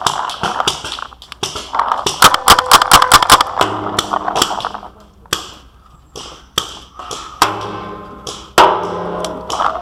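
Paintball markers firing: a rapid burst of sharp pops about two seconds in, then scattered single shots.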